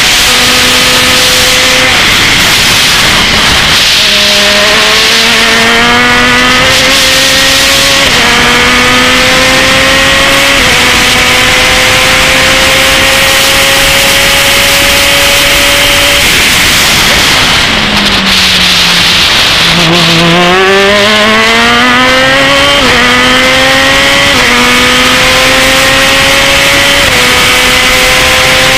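Open-wheel single-seater race car's engine heard from on board at full throttle, rising in pitch with a series of quick upshifts. About two-thirds of the way through the pitch falls steeply under braking and downshifts, then climbs again through several more upshifts, with steady wind rush over it.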